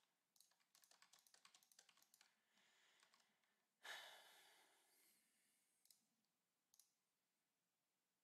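Computer keyboard typing: a quick run of faint keystrokes, then a soft breathy noise about four seconds in, and two single clicks near the end.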